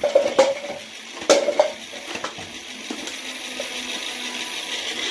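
Nerf toy foam-dart blaster firing: a few sharp plastic clacks in the first two seconds, followed by a steady noise.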